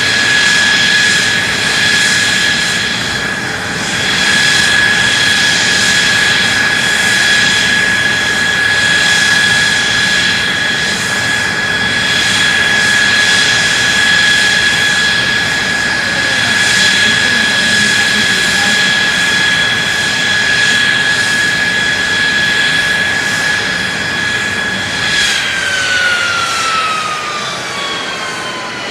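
F-2 fighter's F110 turbofan jet engine running steadily with a loud rushing roar and a high whine. About 25 seconds in, the whine starts falling in pitch as the engine spools down at shutdown.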